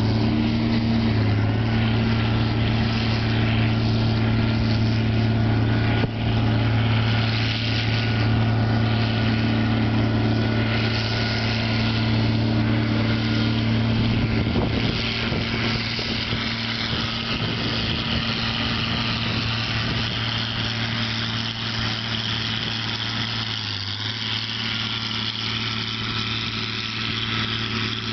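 John Deere 4440 tractor's diesel engine running steadily while working with a John Deere 567 round baler, with a faint high whine above the engine. The low engine note weakens in the last few seconds.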